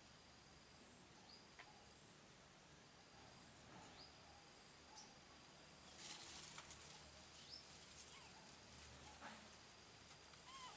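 Faint outdoor ambience: a steady high-pitched insect drone, with short faint chirps now and then and a brief run of soft clicks about six seconds in.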